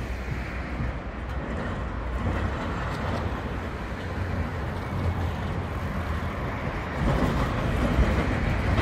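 Historic 1913 MAN tram motor car with a trailer rolling toward the listener along the rails, a steady rumble that grows louder about seven seconds in as it comes closer.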